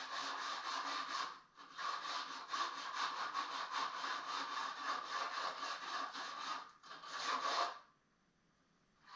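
Hand sanding on an old wooden fireplace mantel to strip its finish: quick, even back-and-forth rasping strokes of sandpaper on wood, about five a second. There is a short break about one and a half seconds in, and the strokes stop about eight seconds in.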